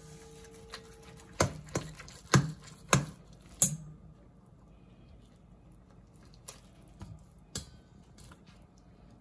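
Kitchen utensils clicking and knocking against cookware: a quick run of sharp clicks in the first few seconds, then a few fainter ones near the end.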